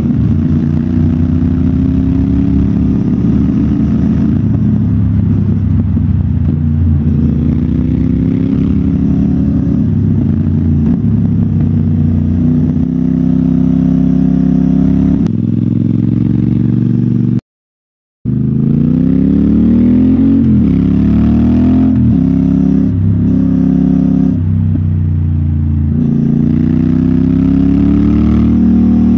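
Motorcycle engine running under load on a rough dirt climb, its pitch rising and falling again and again as the throttle is opened and eased. The sound cuts out for under a second just past the middle.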